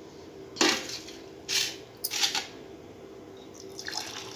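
A pan and drinking glasses clink and knock three times, then turmeric milk starts pouring from the pan into a glass near the end, a steady splashing pour.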